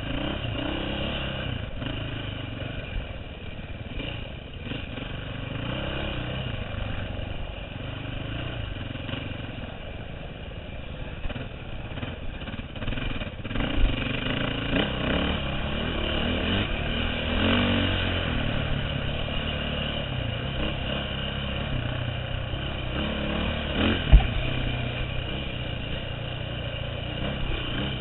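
2009 KTM 530 EXC's single-cylinder four-stroke engine running hard and revving up and down with the throttle, heard from a helmet camera. Two sharp knocks stand out, one about halfway through and one near the end.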